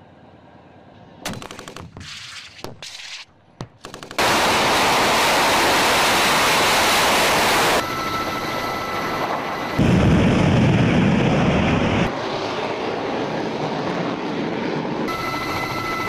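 A few sharp gunshots, then loud, steady jet engine noise from carrier-borne fighter jets that changes abruptly at each cut, with a deeper, louder rumble for a couple of seconds near the middle.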